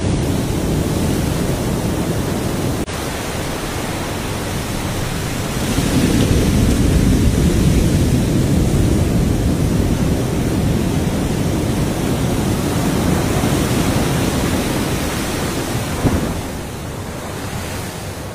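Steady rushing roar of wind and surf, swelling from about six seconds in and easing near the end, with no animal calls standing out.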